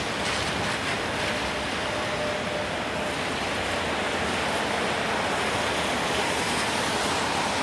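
Steady hiss of a rainy city street: traffic rolling over wet pavement, mixed with falling rain.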